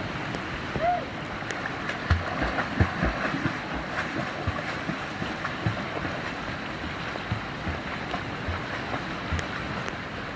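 Mountain valley stream rushing steadily over rocks, with a few low thuds of water or wind buffeting between about two and four seconds in, and a short rising-and-falling tone about a second in.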